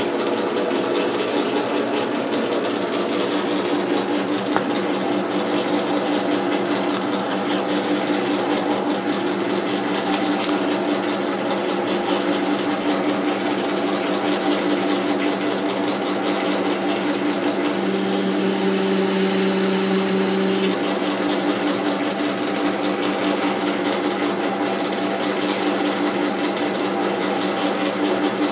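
Metal lathe running with the four-jaw chuck and hub spinning: a steady mechanical hum and whine from the machine. For about three seconds past the middle, a stronger tone and a high hiss join in, then drop away.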